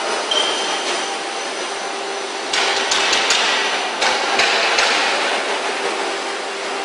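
Textile finishing machinery running with a steady hum and a cluster of sharp knocks and clanks from about two and a half to five seconds in.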